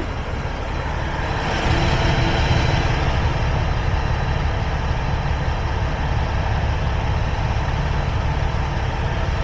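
Semi-truck engine running steadily as a low rumble, growing louder about two seconds in and then holding.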